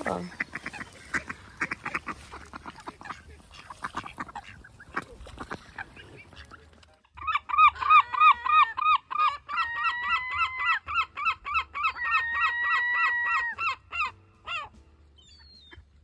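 Herring gull giving its long call: a loud run of rapid yelping notes mixed with longer drawn-out notes, starting about seven seconds in and lasting about seven seconds. Before it, a scatter of short clicks and faint calls.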